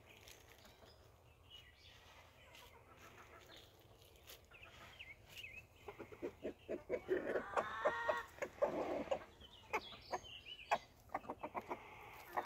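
Chickens clucking: faint at first, then louder and busier from about halfway through, followed by a run of short, sharp clicks near the end.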